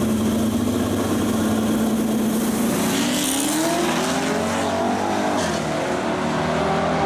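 Drag-racing Corvette and pickup truck engines holding steady on the line, then launching: the engine note climbs hard for a couple of seconds as they accelerate away down the strip, then eases off near the end.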